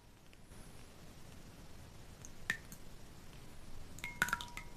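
A ceramic soup spoon scooping chicken soup from a glass bowl: one clink against the glass about halfway, then several quick clinks near the end with the bowl ringing briefly, and soup dripping back into the bowl.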